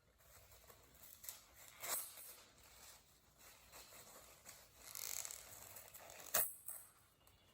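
Paper towels handled close to the microphone: soft crinkling and rustling, with two sharp, louder snaps, about two seconds in and near the end.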